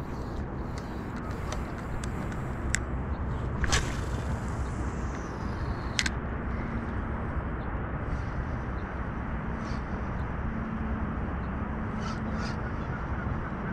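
Steady low outdoor rumble with three sharp clicks in the first half from handling a spinning rod and reel.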